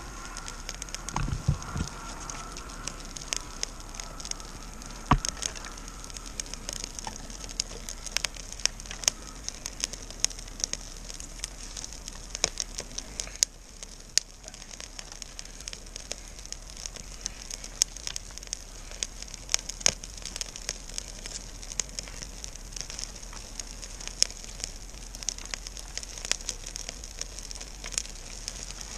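Small campfire of dead pine and hazel twigs over birch bark crackling as it catches, with frequent sharp pops throughout and a couple of low knocks about a second and a half in.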